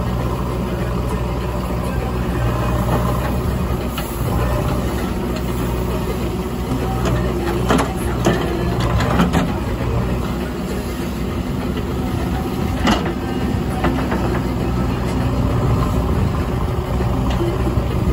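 JCB 3DX backhoe loader's diesel engine running steadily while the backhoe digs soil, with a few sharp metallic clanks from the bucket and arm around the middle.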